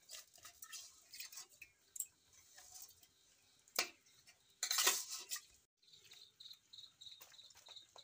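Rice grains scraping and clicking against a perforated aluminium strainer plate as washed rice is tipped and shaken over a pot of rice water, with a louder rushing sound about four to five seconds in. After an abrupt break near the end, crickets chirp in a steady pulse, about three chirps a second.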